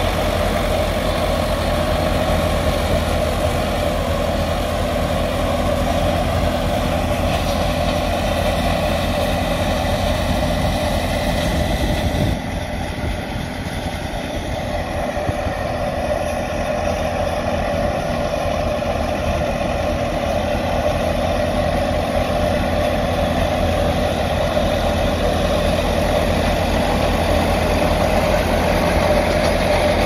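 Massey Ferguson 385 tractor's four-cylinder diesel engine running steadily under load as it powers a wheat thresher, with the thresher's machinery running along with it. The sound drops slightly in level about twelve seconds in, then carries on unchanged.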